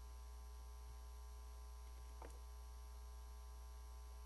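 Near silence with a faint, steady electrical hum, and one faint short falling blip about two seconds in.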